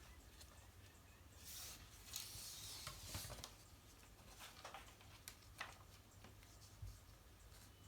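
Faint rustling of cloth being handled for about two seconds, then a few light clicks and soft taps, over near-silent room tone.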